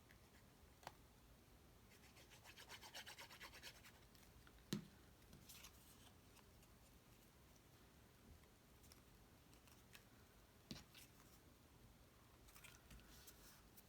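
Faint handling of cardstock pieces: scratchy rubbing and scraping twice, with a few light taps.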